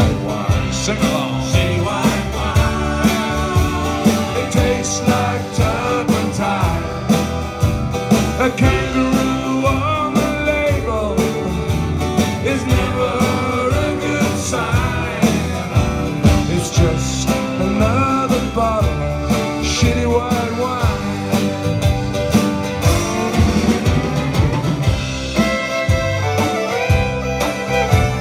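Live folk-country band playing with a steady beat: strummed acoustic guitars, banjo, fiddle and accordion over drums, with voices singing.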